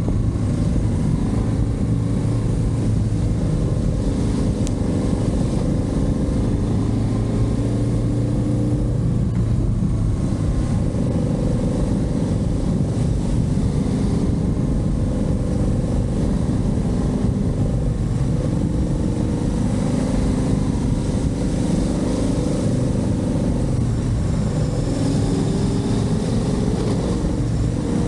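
Motorcycle engine running while riding, its pitch shifting a little as the throttle changes, over a steady rushing noise.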